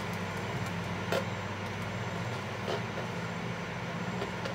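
Steady hum of an electric fan running in the room, with a soft click about a second in and another near three seconds in.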